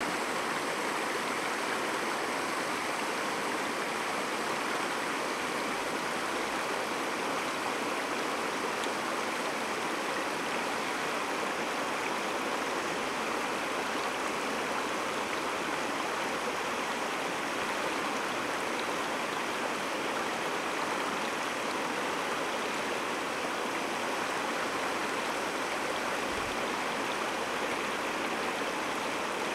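Shallow creek water running steadily over a gravel and cobble bed: a constant, even rush of flowing water.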